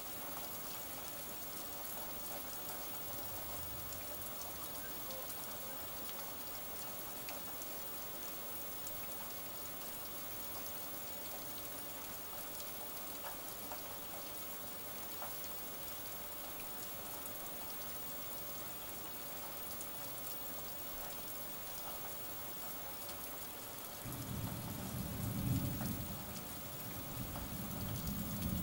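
Steady rain falling, with scattered drops ticking. About 24 seconds in, a low rumble of thunder rolls in and swells twice.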